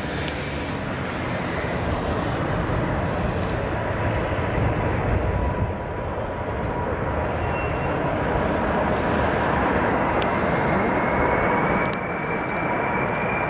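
Boeing 747 jet engines on low final approach: a steady, loud roar with a thin whine that rises slightly in pitch over the last few seconds.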